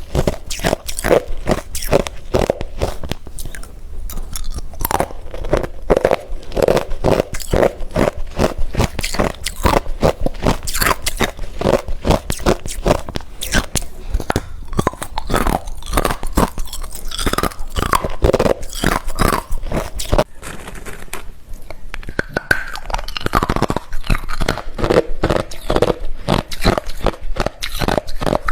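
Close-up chewing of hard refrozen crushed ice: a continuous run of sharp crunches, several a second, as the ice is bitten and crushed between the teeth.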